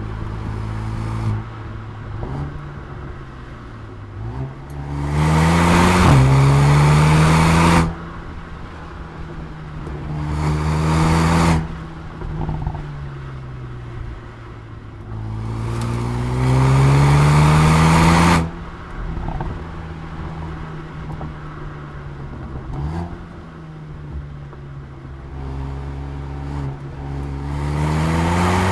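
Mercedes-AMG A35's turbocharged four-cylinder engine and exhaust pulling hard under acceleration in repeated runs, the pitch climbing each time. One run includes an upshift. Each run cuts off sharply as the throttle lifts, and another begins near the end. Between runs the engine runs at lower revs with a few short, sharp exhaust pops on the overrun.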